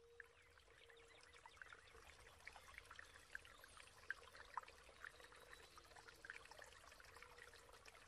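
Faint trickling of a small brook, with scattered little plops and splashes of water, and a faint steady hum underneath.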